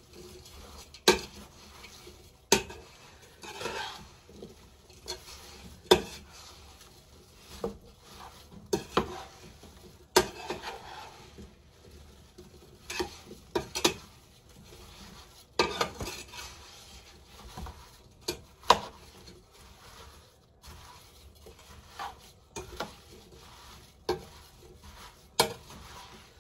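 A spoon stirring sliced apples coated in butter and brown sugar in a pot, with irregular knocks and scrapes of the spoon against the pot's sides.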